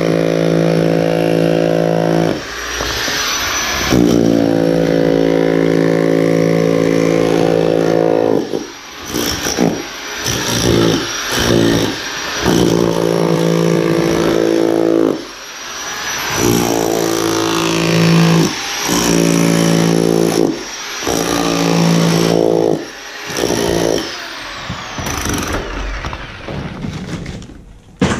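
Harbor Freight SDS rotary hammer chiselling in repeated runs of a few seconds: a steady, fast hammering buzz that stops and starts many times, with short knocks between runs. Near the end the runs get shorter and choppier.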